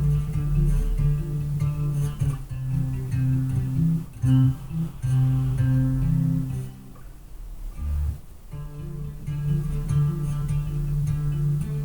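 Five-string electric bass played through a bass amp and cabinet, a line of held low notes heard through a webcam mic, with a short lull about seven seconds in.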